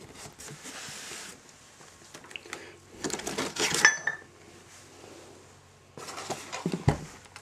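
Plastic-wrapped packets of clutch-kit bolts, springs and washers being handled and set down on a wooden table. There is a soft rustle of the packaging, a burst of clicking and clinking of the metal parts about three seconds in, and a thump near the end.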